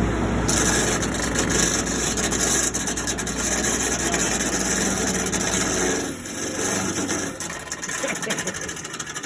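1950s window air conditioner running with a steady low hum and a loud rattling buzz. The hum cuts off about six seconds in and the noise drops, as the unit stops.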